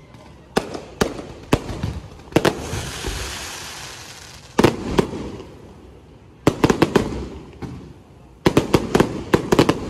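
Electronically fired aerial fireworks bursting: sharp bangs, some single and some in rapid clusters, with a fizzing hiss lasting about two seconds in the middle.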